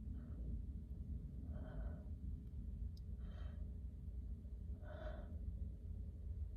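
A woman's short, breathy gasps, three of them about a second and a half apart, over a steady low hum: catching breaths as a sneeze builds up during a head cold.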